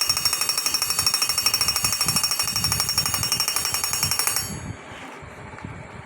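Small electric alarm bell of a model anti-theft door alarm ringing with a rapid, loud rattling buzz, set off by the door being opened. It cuts off suddenly about four and a half seconds in.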